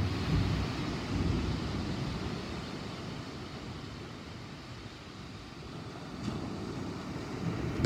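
Low rumble of thunder from a thunderstorm, dying away over the first few seconds and building again near the end, under a steady hiss of wind.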